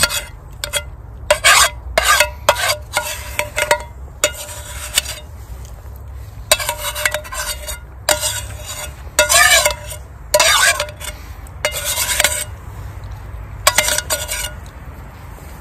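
Metal spoon scraping and scooping food out of a small metal camping frying pan: a series of short, irregular scrapes, some leaving the pan ringing briefly.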